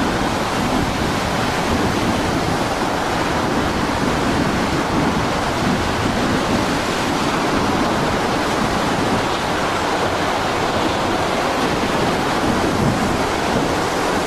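Heavy storm surf breaking and churning: a steady, unbroken rush of water noise.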